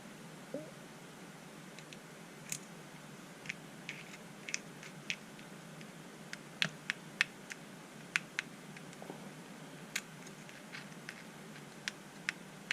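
Small sharp clicks and taps, about twenty of them at irregular intervals, as the small gearbox parts of a Bosch Ixo cordless screwdriver are handled and fitted together.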